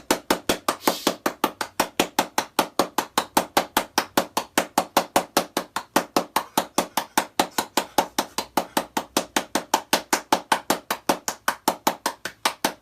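Rapid, even knocking or tapping, about five or six sharp knocks a second, kept up without a break.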